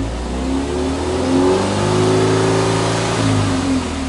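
Subaru Impreza WRX STI's turbocharged flat-four (boxer) engine free-revving while parked, heard from the exhaust. The revs climb over about a second and a half, hold high for a couple of seconds, then drop back toward idle near the end.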